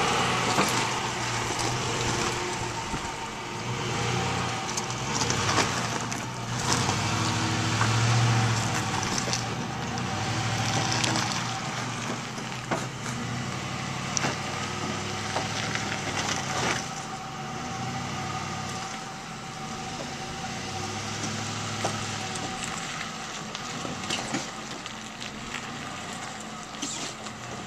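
Ford F-150 pickup crawling over rocks at low speed: its engine runs with a low note that swells and eases with the throttle, while its all-terrain tyres crunch over loose stones with scattered clicks and pops.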